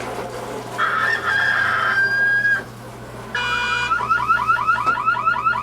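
Sound effects played from a tablet's sound app: first a long, held, crow-like call, then an electronic alarm with a quickly repeating rising chirp, about five a second, that carries on to the end.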